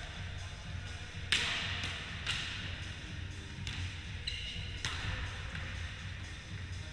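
A volleyball being struck by players' hands: four sharp hits roughly a second apart, the first the loudest, each echoing in a large gym. A brief high squeak of sneakers on the wooden floor comes about halfway through, over a steady low hum.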